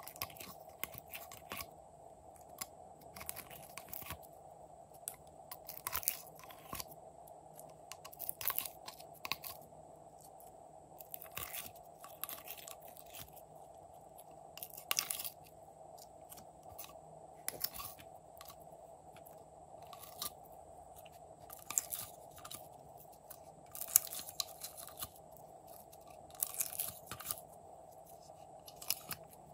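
Glitter slime being pulled out of a plastic compartment tray and dropped into a glass dish: irregular sticky clicks and crackles, several bursts a second at times, over a faint steady hum.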